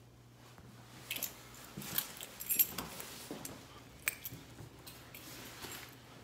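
Keys jingling in short bursts of light clinks, a few times over a few seconds, over a faint steady hum.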